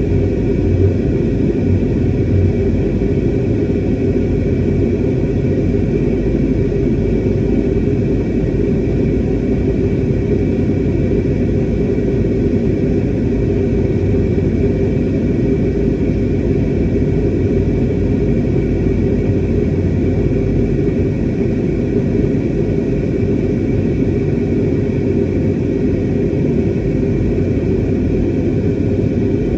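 Jet airliner cabin noise: a steady engine drone and rushing airflow, dominated by a deep rumble with a few faint steady tones above it.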